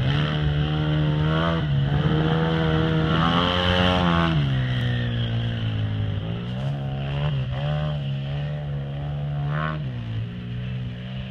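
Polaris RZR 800 side-by-side's twin-cylinder engine revving up and down with the throttle as it drives, the pitch climbing and dropping several times. The sound fades gradually as the machine pulls away.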